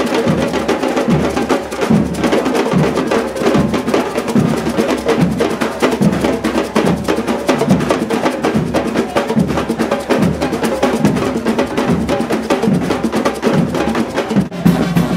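Street band music driven by drums: a steady beat with busy, rapid percussion hits and sustained pitched instruments underneath.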